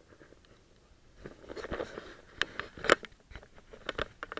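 Handling noise from a small action camera being turned on its mount: rustling with a quick run of sharp clicks and knocks, starting about a second in and sharpest near the end.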